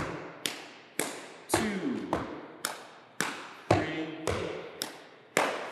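Body percussion: alternating foot stomps on a wooden floor and hand pats on the thighs in a steady four-beat cycle, about two hits a second, with the heaviest hit falling on every fourth beat.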